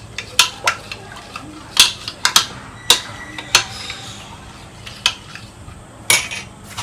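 A spoon clinking and scraping against a bowl while stirring a thick cornflour-and-spice batter, with irregular sharp clinks a second or so apart.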